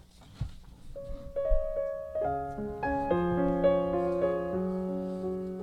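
Gentle piano music: a few single notes about a second in, then soft sustained chords from about two seconds in.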